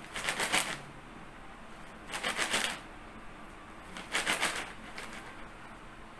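Plastic snack packet crinkled by hand, used as a percussion sound: three short crackling bursts about two seconds apart.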